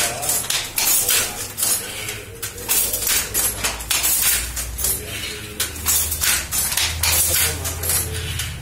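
Wooden handloom clattering in a quick, uneven run of knocks and clacks as it weaves, the batten and shuttle striking and the border mechanism rattling. A low hum comes in about halfway through.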